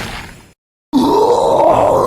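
A brief dead silence, then about a second in a drawn-out, groaning voice that starts low, rises and wavers.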